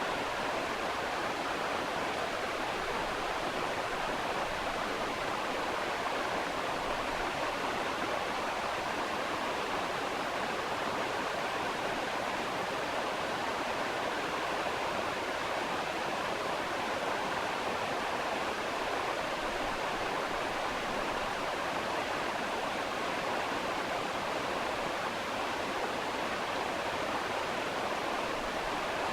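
Steady, even rushing noise like a running stream or pink noise, unchanging throughout, laid over the footage in place of the ultrasonic scaler's sound.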